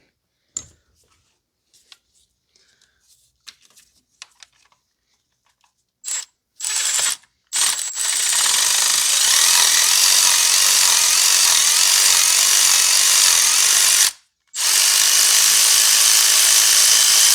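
Power tool running to unscrew a spark plug from a BMW N55 cylinder head: three short blips about six seconds in, then two long steady runs with a brief stop between them.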